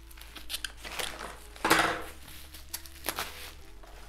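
Scissors snipping the binding on a bubble-wrap parcel and the plastic bubble wrap crinkling and rustling as it is handled open, with one louder rustle a little under two seconds in.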